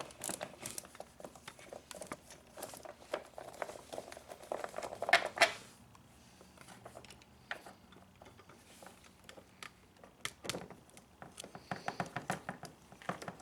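Irregular clicking and light knocking of a hand screwdriver with a star (Torx) bit and small metal parts, worked on the backrest screws inside a plastic-lined motorcycle trunk. The loudest cluster of clatter comes about five seconds in, with a quieter stretch after it.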